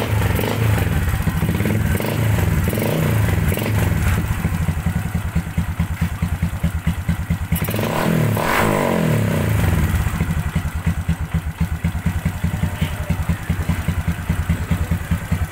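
Big-bore Honda XRM 125 single-cylinder four-stroke engine running after carburettor tuning, revved up and back once about eight seconds in. It then settles into a low, even idle with each firing stroke distinct, the idle set very low, like a stock bike.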